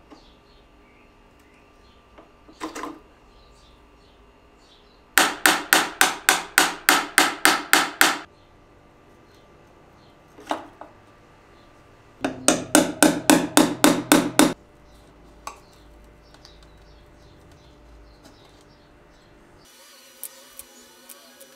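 A chisel struck against the wooden action of a reed organ while the mute strips are freed: two runs of about a dozen quick, sharp knocks, roughly four or five a second, with a few single taps between.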